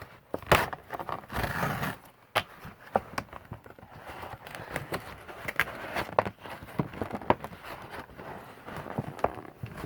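A cardboard package being handled and opened by hand: scattered knocks and clicks, with a short rustle about a second in.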